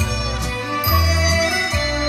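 Recorded music played back over a hi-fi system driven by a Luxman CL35 control amplifier and a Technics SE-A100 power amplifier. A strong bass line changes note about every half second under a held melody.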